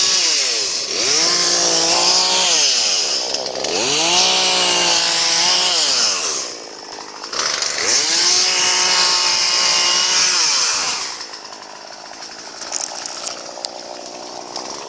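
Chainsaw engine revved up high and let back down about three times, then dropping to a lower, quieter idle for the last few seconds.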